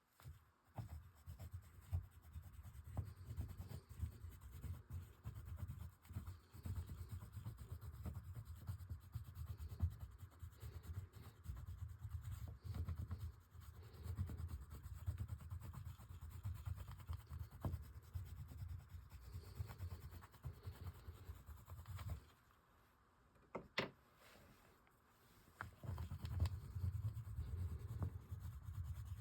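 Oil pastels rubbing in continuous drawing strokes, stopping for about three seconds near the end, where a couple of sharp clicks are heard, then starting again.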